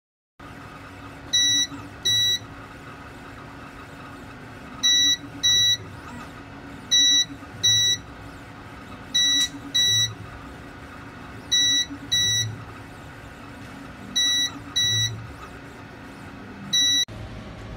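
A 3D printer's electronic buzzer beeps in pairs of short, high, clean beeps, the pairs repeating about every two and a half seconds over a steady fan hum.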